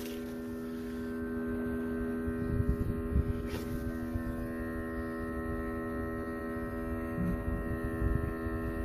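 A steady, even hum made of several held tones over a low rumble, with a brief rise in level about three seconds in.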